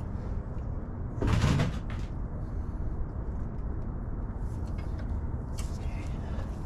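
A short metallic clatter of hand tools or parts being handled, about a second and a half in, over a steady low background hum.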